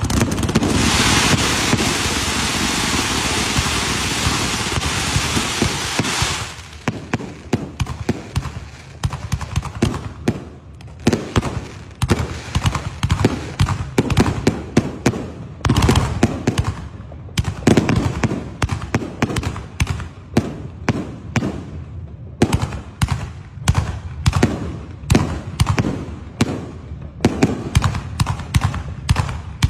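Fireworks during Diwali: a loud, steady hissing spray for about six seconds that cuts off suddenly, followed by rapid, irregular bangs and cracks of firecrackers going off several times a second.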